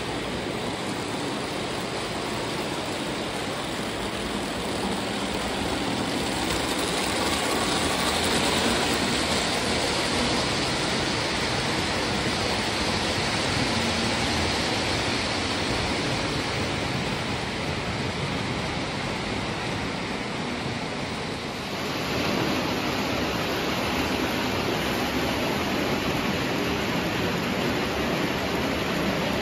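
Lionel O-gauge model passenger trains running on three-rail track: a steady rolling rumble and hiss of wheels and motors. The sound changes abruptly about two-thirds of the way in.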